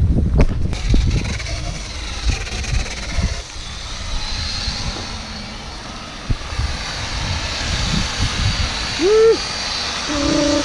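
Corded angle grinder with a 60-grit sanding disc running against a boat hull, a steady grinding noise with a faint high whine, sanding off old antifouling paint before priming. Heavy low rumble in the first second.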